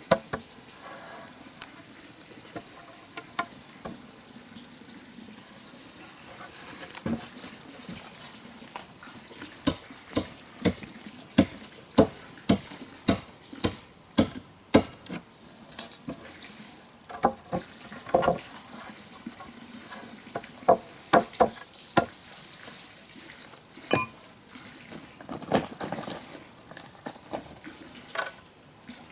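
A series of sharp knocks in irregular runs, at their densest about two a second, over a faint steady hiss.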